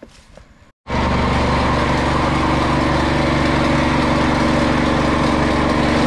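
A small engine running steadily at an even, constant speed, loud and unchanging; it cuts in suddenly about a second in.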